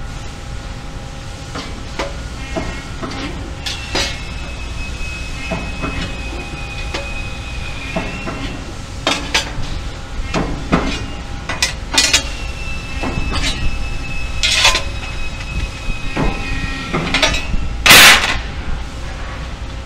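Press brake bending sheet metal in a fabrication shop: a steady machine hum with scattered clanks and taps of metal being handled and formed, and a high steady whine that comes twice, each time for about five seconds. A loud half-second rush of noise comes near the end.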